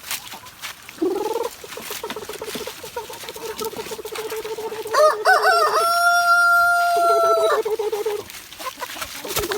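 Chickens clucking in a rapid, steady run of calls, while about five seconds in a rooster crows: a few short notes then one long held note lasting about two seconds, the loudest sound.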